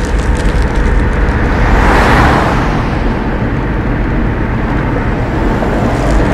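Steady engine and road noise inside a moving van's cab, with a rushing whoosh that swells and fades about two seconds in, as another vehicle goes past.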